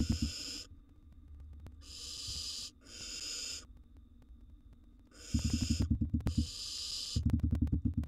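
Barn owl nestlings giving rasping, hissing begging calls: about five calls of roughly a second each, the food-begging 'snore' of hungry young barn owls. A rapid low pulsing runs under the last two calls.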